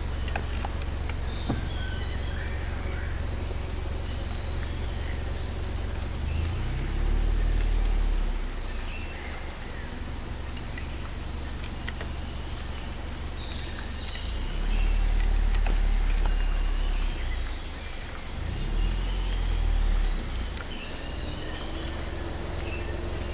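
Vehicle engine running with a steady low rumble that swells louder several times, with forest birds chirping over it.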